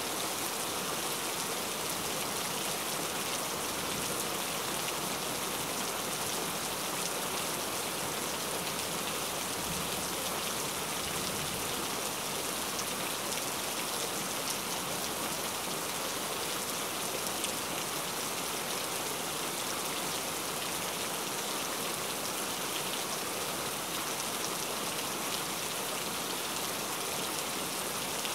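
Steady rain falling, an even hiss of many drops without a break.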